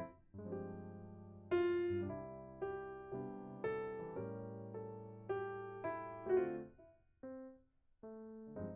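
Gentle solo piano background music: single notes and chords over held bass notes, each struck and fading, thinning to a few notes near the end.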